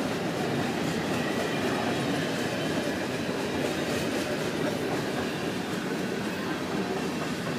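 Grain hopper cars of a Canadian Pacific freight train rolling past: a steady rumble of steel wheels on the rails, with clicking from the wheels over the rail joints.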